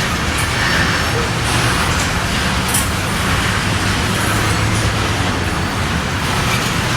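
Norfolk Southern train running by, a steady rumble with a low engine drone throughout.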